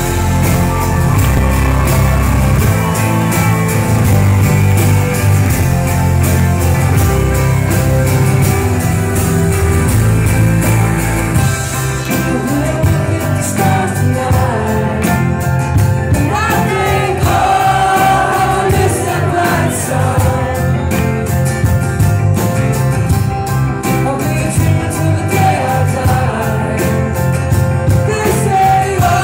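A live folk-rock band playing a song with acoustic and electric guitars, keyboards and a steady beat under a heavy low end, with a female and a male voice singing.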